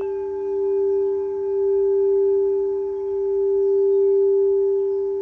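Singing bowls ringing in a steady sustained hum. A second, lower tone with its own higher overtones joins right at the start, and the overall loudness swells and eases slowly.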